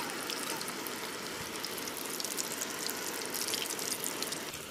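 Coated chicken lollipops deep-frying in a large iron kadai of hot oil, sizzling with a steady dense crackle.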